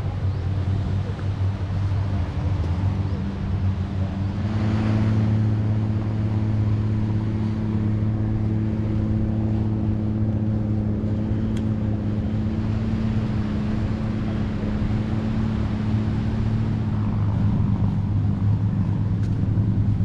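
A boat engine running steadily, its pitch stepping up slightly about four seconds in and dropping back near the end.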